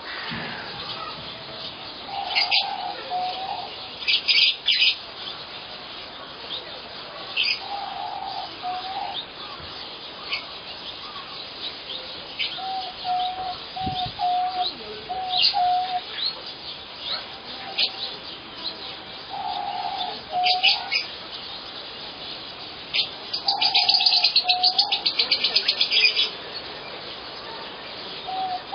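Birds calling: low, repeated call phrases mixed with short high chirps, and a fast high trill for a few seconds near the end.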